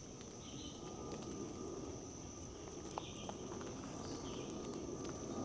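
Faint low rumble of a large airplane passing overhead, unseen in the fog. Over it runs a steady high insect drone, with a few faint bird chirps.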